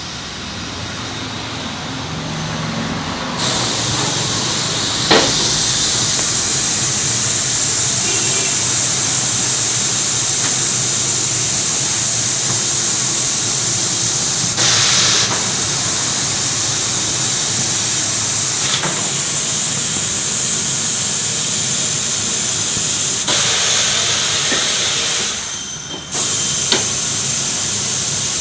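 Compressed air hissing steadily at a tyre-fitting machine, coming in a few seconds in over a low steady hum, with a few sharp clicks and a short break in the hiss near the end.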